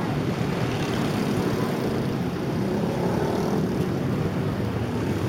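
Steady rumbling road noise from riding along a busy street: wind on the moving camera's microphone mixed with the sound of passing traffic.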